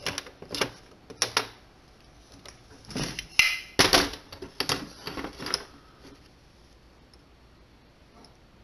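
Metal clicks and clatter from a Willcox & Gibbs sewing machine head and its small parts being handled and fitted by hand on a workbench: a run of sharp knocks and clinks that stops about six seconds in.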